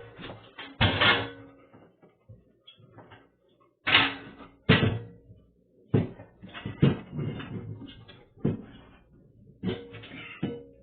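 A refrigerator knocking and bumping as it is shifted and jostled: a string of irregular thuds, the loudest two about four and five seconds in, with rattling and scraping between.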